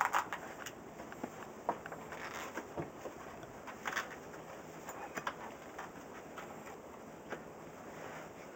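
Geax AKA TNT tubeless-ready bicycle tire being worked onto its rim by hand: irregular light rubbing and clicking of the rubber bead against the rim, with a louder cluster of clicks right at the start.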